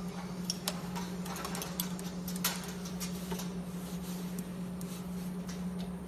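Wire harness taping machine standing between wrapping cycles, its rotating tape head stopped: a steady low hum, with scattered light clicks and taps as a cable bundle is handled in the machine's jaws.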